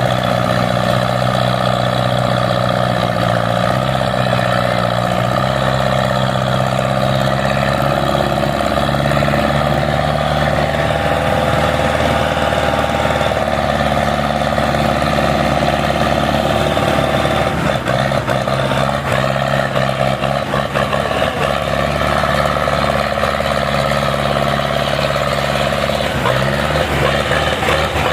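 Tractor engine running steadily with small shifts in pitch, and a spell of short knocks and rattles a little past the middle.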